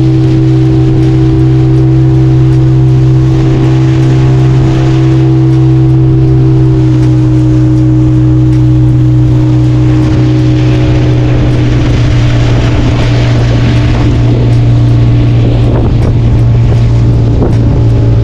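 Outboard motor of a small wooden fishing boat running steadily under way, its pitch sinking a little through the second half as the boat slows on the approach to land.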